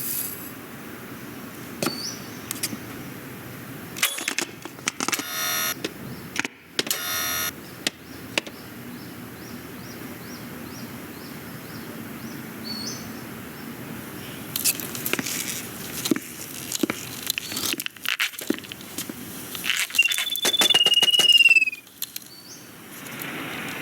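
Animated-film sound effects with the dialogue stripped out: a string of small clicks, knocks and short rattles of plastic toys being handled and moving about. Near the end there is a louder passage with a brief high squeal that slides down in pitch.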